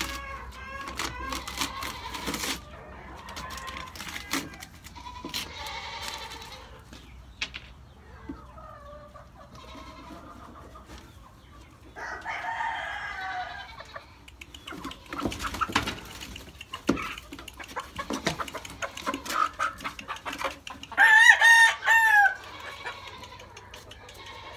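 Chickens clucking and crowing in the barn while a cardboard shipping box is cut and opened, with rustling and scattered clicks. About 21 seconds in comes the loudest sound, a loud pitched chicken call in about three pulses.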